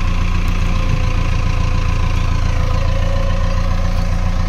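Farm tractor's diesel engine running steadily at low revs, an even, unchanging engine note.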